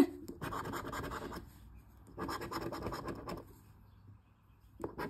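Scratch-off lottery ticket being scratched in three short bouts with brief pauses between, the last starting near the end.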